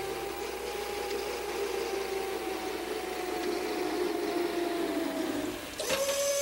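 Jet airliner engine whine: a steady hiss with two whining tones that sink slowly in pitch, breaking off near the end.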